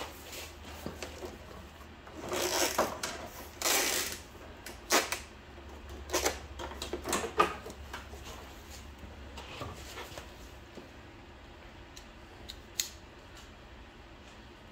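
Hand tools and metal parts being handled on a mower engine, with a few rustling, scraping bursts about two to four seconds in, then scattered sharp clicks and clinks. A faint low hum runs underneath and stops near ten seconds.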